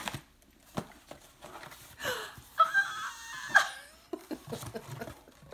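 A woman making wordless excited sounds, high squeals and breathy gasps with the pitch sliding up and down, about halfway through. Around them come a few clicks and rustles from opening a cardboard box.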